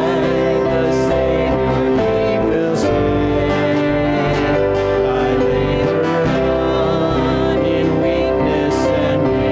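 Music: a singing voice over sustained instrumental chords.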